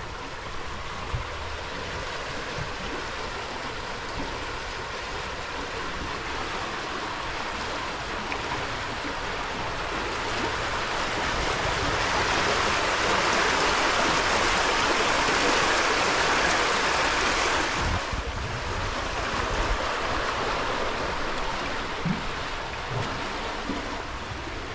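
Water rushing in a river, a steady hiss that swells to its loudest in the middle, then drops suddenly about eighteen seconds in and carries on a little quieter.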